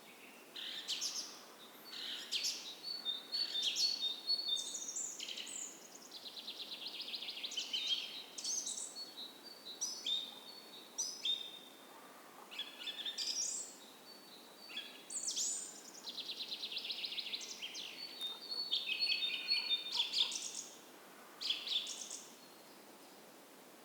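Morning chorus of several songbirds singing over one another in quick chirps and rapid trilled phrases, against a faint steady rush of a gentle creek.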